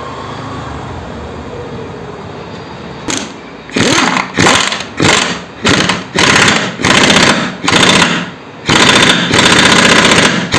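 Power impact wrench tightening the camshaft sprocket bolts on a motorcycle engine, run in about ten short bursts starting about three seconds in, with the last bursts longer.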